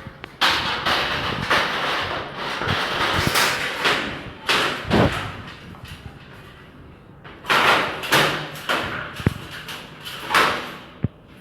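Aluminum panels of a collapsible dog cage sliding and scraping against each other, with several sharp metal knocks as the parts are fitted together.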